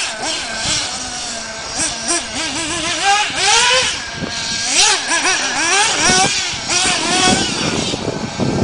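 Engines of radio-controlled off-road buggies, a high-pitched whine that keeps rising and falling as the throttle is opened and closed through the turns, with more than one car heard at once.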